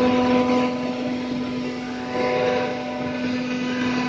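CNC wood router's spindle motor running at a steady speed, a constant pitched drone over a rushing noise of the cut.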